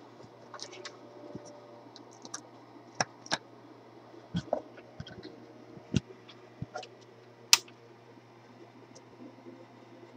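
Handling noise from a handheld camera being moved about: irregular, scattered clicks and light knocks over a faint steady hum. The sharpest click comes about seven and a half seconds in.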